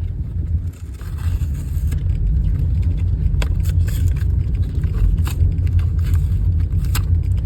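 Cardboard and plastic packaging of a blind box being handled and opened: scattered sharp clicks and scraping over a steady low rumble.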